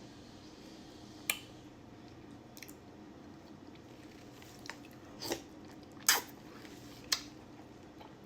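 A person chewing a mouthful of beef, with several sharp, wet mouth clicks and smacks, the loudest about six seconds in.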